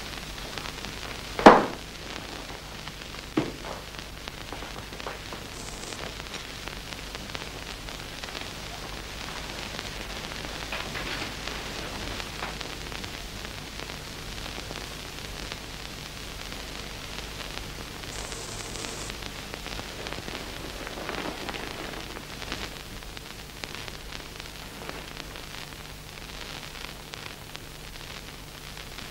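Steady hiss of an old soundtrack with a faint low hum, broken by a sharp knock about a second and a half in and a softer knock about two seconds later.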